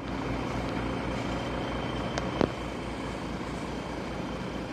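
Hydraulic excavator's diesel engine running steadily, with an even low throb. A single sharp knock about two and a half seconds in.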